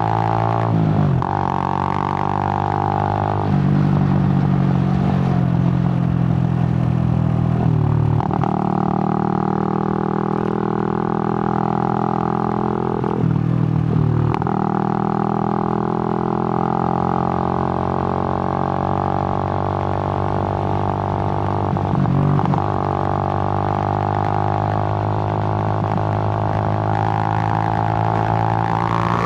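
Suzuki GN125's single-cylinder four-stroke engine running steadily under way, a low drone. Its note dips briefly and climbs back about four times, as the throttle is eased off and opened again.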